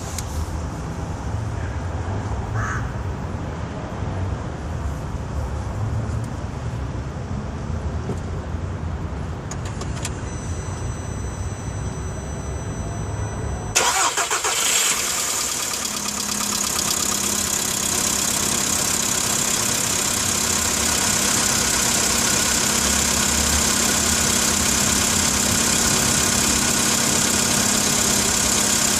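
Volkswagen Polo Sedan engine cranked and started about fourteen seconds in, then idling steadily. Before the start there is only a low rumble, with a faint high tone coming in about ten seconds in.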